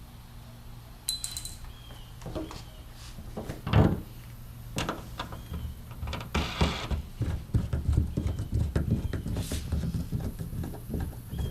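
Irregular clicks and knocks of a paintless dent repair kit's glue pads and bridge puller being handled against a van's sheet-metal panel, with one louder knock about four seconds in and busier knocking in the second half, over a steady low hum.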